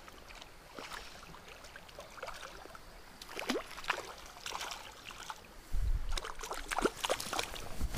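A small rainbow trout splashing at the stream's surface as it is played on the line: scattered short splashes and plops, growing busier in the second half, with a couple of dull low bumps near the end.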